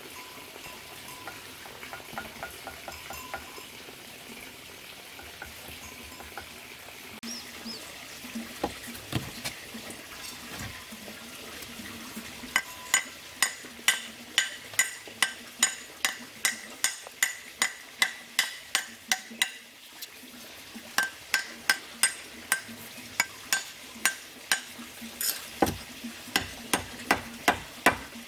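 Low steady hiss with faint scraping, then from about twelve seconds in, quick hard taps with a metallic ring, about two a second, that pause briefly and then carry on.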